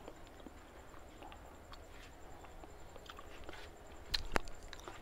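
A person eating a bite of hot steamed cassava: faint scattered chewing and mouth clicks, with a few sharper clicks a little after four seconds in.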